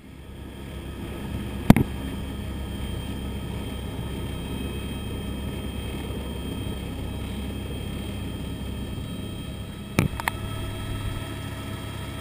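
Helicopter engine and rotor heard from inside the cabin. The sound swells over the first second or so as power comes up for take-off, then runs steadily as a low drone with a thin high whine above it. Two sharp knocks sound about two seconds in and about ten seconds in, the second one doubled.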